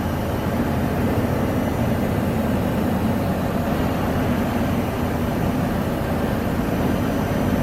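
Steady running noise of machinery: an even, deep hum with a few faint high, thin tones above it and no breaks or impacts.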